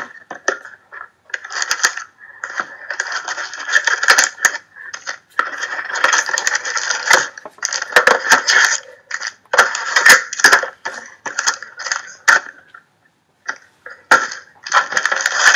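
Plastic shrink-wrap and cardboard packaging crinkling and rustling in stretches, with many sharp clicks and taps, as a sealed box of trading cards is unwrapped and opened by hand.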